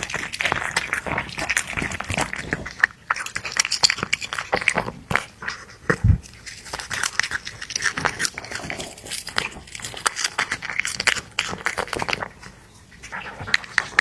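A cat eating, many quick wet smacks and chewing clicks in an uneven run, with a short dull thump about six seconds in and a brief lull near the end.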